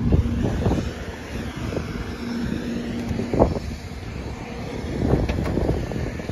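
Wind buffeting the microphone in an irregular low rumble, with a faint steady hum coming and going and a few short knocks.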